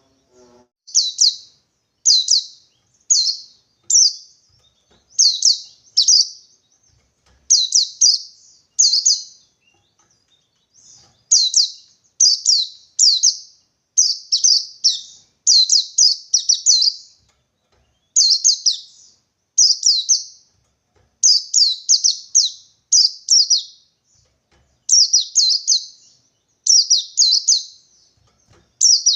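Wild white-eye (pleci) singing its 'ngalas' song: short, high, rapid chirping phrases repeated in groups of one, two or three with brief pauses between. This is the call of a white-eye seeking a rival.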